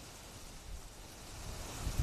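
Wind gusting through tree leaves ahead of a thunderstorm: a steady rustling hiss, with low buffeting of wind on the microphone that grows stronger near the end.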